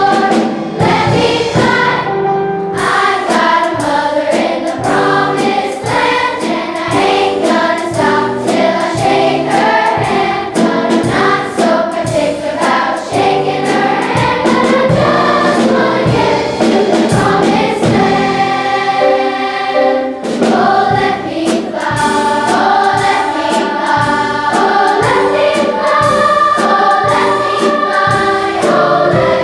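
Large children's choir singing a lively spiritual with piano accompaniment, with rhythmic piano chords under the voices.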